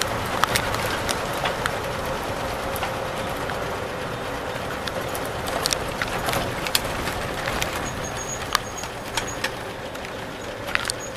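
A 1949 Bedford OB coach's engine running steadily under road noise, heard from inside the cab, with sharp clicks and rattles now and then. The sound eases off slightly near the end.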